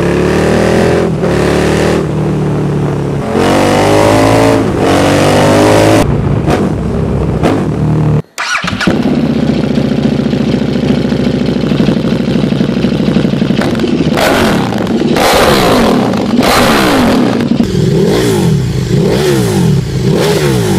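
KTM 1290 Super Duke's 75-degree V-twin, with a deep sound. It first pulls hard through the gears, pitch rising between quick shifts. After a cut at about eight seconds it runs on the stand through an Austin Racing exhaust and is revved. Near the end it is blipped rapidly up and down through an SC Project exhaust.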